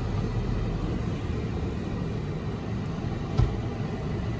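Steady low rumble of a car's engine and tyres heard from inside the cabin while driving, with a single short thump about three and a half seconds in.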